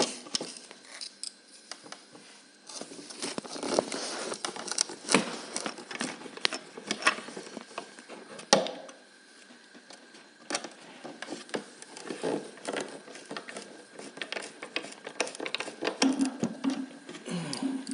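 Small screws being driven by hand with a screwdriver into the cedar frame of a beehive's observation window: irregular clicking and scraping, with a few louder knocks.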